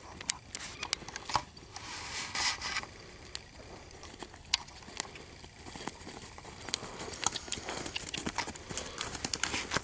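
Hoofbeats of a ridden American Quarter Horse mare moving over arena dirt, heard as irregular sharp clicks and thuds.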